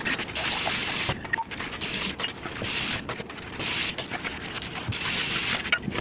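Dishes being washed by hand at a stainless steel sink: running tap water and sponge scrubbing in repeated swells of hiss, with a few light clinks of dishes.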